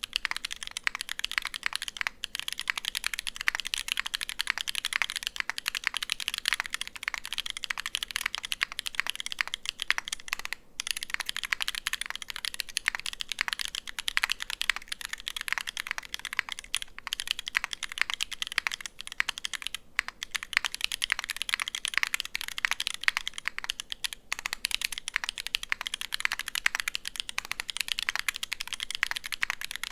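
Continuous fast typing on a Unikorn 60 mechanical keyboard with lubed Holy Panda tactile switches, a brass plate and GMK keycaps. The keystrokes run as a dense, steady clatter, broken by a few short pauses.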